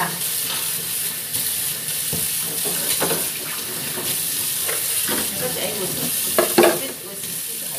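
Noodles sizzling in a wok over a gas burner while a spatula stirs and scrapes them, with scattered clacks of the spatula against the pan over a steady hiss of frying.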